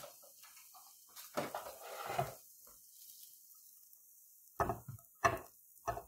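A spatula scrapes sautéed onions and peppers out of a Ninja nonstick frying pan into a ceramic bowl. A stretch of scraping comes early, then three sharp knocks of the spatula against the pan near the end.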